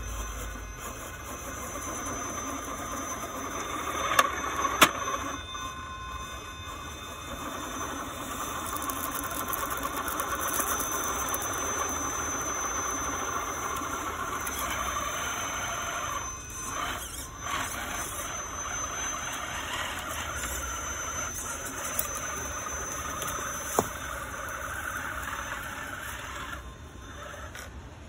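High whine of an electric RC rock crawler's Castle 2280kv Slate brushless motor and geared drivetrain (transmission, transfer case and portal axles) as it crawls over rocks, rising and easing with the throttle. A few sharp knocks of the crawler against stone, two of them about four to five seconds in and one near the end.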